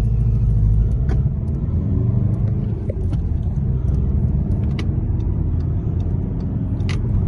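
Car engine and tyre rumble heard from inside the cabin while driving, a steady low drone with a few light clicks and rattles.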